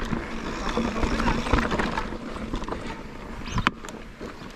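Mountain bike rolling fast over a dry, rocky dirt trail: the tyres crunch on loose stones and the bike rattles over the bumps, with one sharp knock about three and a half seconds in.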